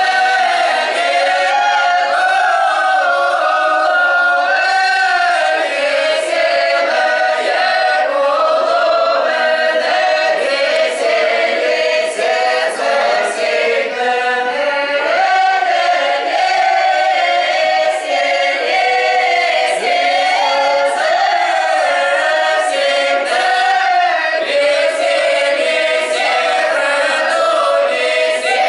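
Mixed choir of men's and women's voices singing a Russian folk round-dance (khorovod) song unaccompanied, without a break.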